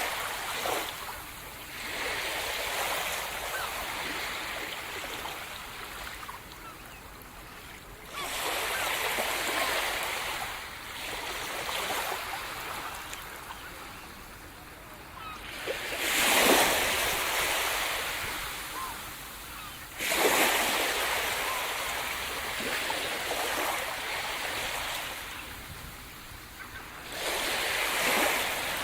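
Sea surf breaking on a shore: waves wash in one after another in loud surges a few seconds apart, with a softer hiss of receding water between them. The biggest breakers come a little past halfway.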